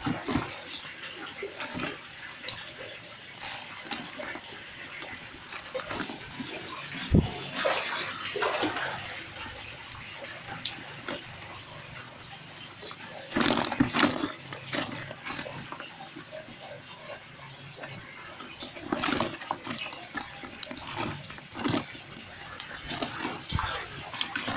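Live fish flapping and splashing in a basin of water as a hand sorts through them: irregular wet slaps, knocks against the basin and splashes, with louder flurries of thrashing several times.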